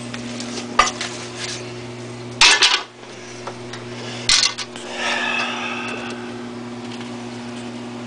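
Knocks and clatter of hard plastic and metal parts being handled while the front control panel of a window air conditioner is taken apart, the loudest clatter about two and a half seconds in and another knock a couple of seconds later. A steady low hum lies underneath.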